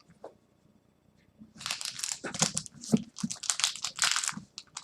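Crinkling and crumpling of a plastic trading-card pack wrapper being handled, starting about a second and a half in and going on in a dense, irregular crackle.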